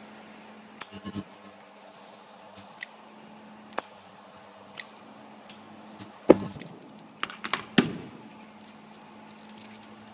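Work sounds of a hand-held ultrasonic welding gun pressed along a foam sleeve: scattered sharp clicks and scrapes, the sharpest about six seconds in, over a steady low hum.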